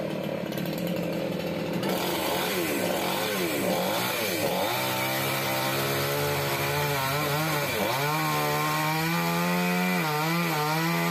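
Two-stroke chainsaw revving up and down a few times. From about five seconds in it runs steadily at full throttle, cutting through a branch of a mindi tree, its pitch sagging briefly now and then as the chain bites.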